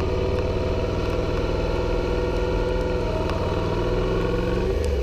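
Suzuki SV650's V-twin engine running steadily, its pitch shifting slightly and rising briefly near the end.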